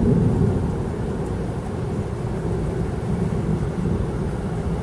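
Thunder rumbling low, loudest at the start, then rolling on steadily.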